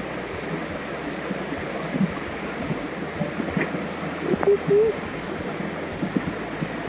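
Steady rush of flowing water from the waterfall and its stream, with a few faint knocks and a brief pitched sound about four and a half seconds in.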